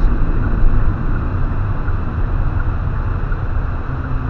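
Steady road and engine noise of a car driving, heard inside the cabin, heaviest in the low end. A low steady hum joins about four seconds in.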